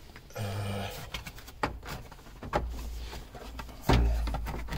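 Plastic dash trim on a Jeep Wrangler being worked loose by hand: scattered clicks and knocks. A brief low hum comes about half a second in, and a low rumble runs from about two and a half seconds on, loudest near the end.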